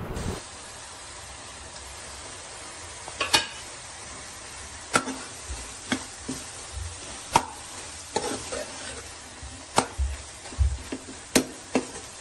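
Steel spoon stirring mutton keema frying in oil in a steel karahi, a steady sizzle throughout. From about three seconds in the spoon clinks and scrapes against the pan every second or two.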